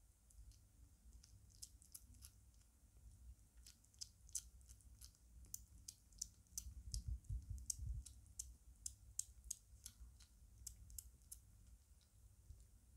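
A five-week-old British Shorthair kitten eating shredded meat food from a plate: faint, quick clicks and smacks of her chewing and licking, sparse at first and coming thickest in the middle, over a low room hum.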